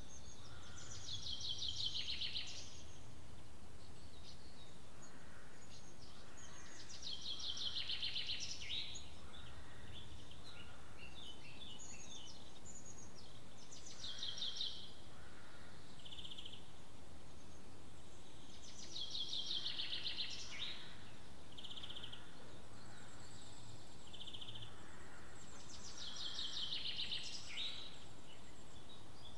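A songbird repeating the same short, rapid, high trilled phrase about every six seconds, each phrase lasting a second or two, with fainter chirps between. A steady low background rumble lies underneath.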